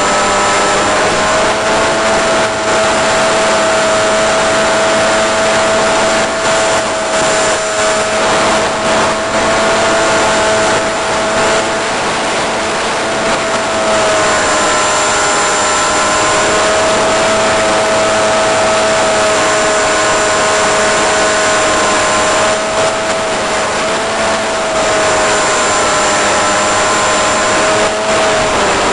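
Electric motor and propeller of a 1.5 m Eagle Wing flying wing whining in flight, picked up on board with wind rushing past. The whine holds a steady pitch and eases down briefly a few times, around halfway, near two-thirds through and near the end, as the throttle changes.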